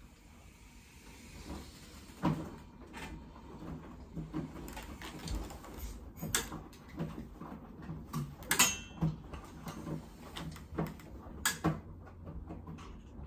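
Irregular clicks and knocks from a power wheelchair being driven and steered across a small room, with sharper knocks about two seconds in and several more later on.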